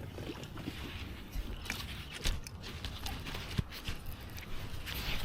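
Scattered knocks, clicks and rustles of handling gear in a kayak while a hooked bass is fought and landed, with two sharper thumps a little after two and three and a half seconds in, over a low wind rumble on the microphone.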